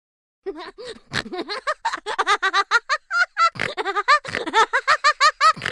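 A person laughing hard in a quick run of high-pitched bursts, about five or six a second, starting about half a second in and still going at the end.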